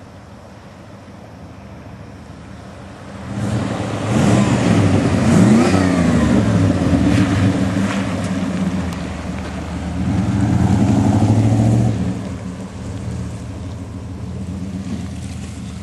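1988 GMC Sierra pickup's engine running quietly, then revved hard about three seconds in, its pitch rising and falling, with a second loud run-up around ten seconds in before it eases back.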